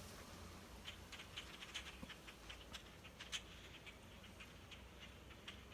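Faint chatter of a flock of blackbirds: many short, scattered high chips and clicks.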